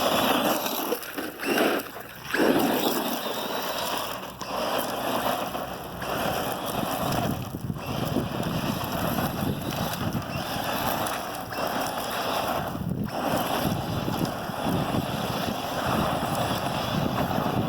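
Traxxas Stampede 4x4 RC truck running over a dusty lot, its tyres spinning and throwing up dirt. The sound is a loud, rough rushing that swells and dips, briefly dropping away a few times.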